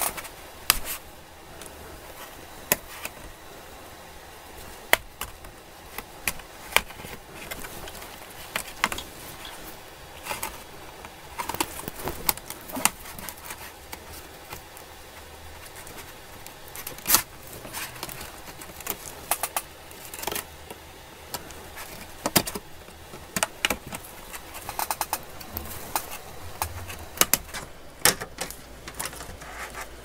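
Plastic pry tool working around the edge of an Acer Swift 1 laptop's bottom cover: irregular sharp clicks and snaps, some in quick runs, as the cover's retaining clips let go.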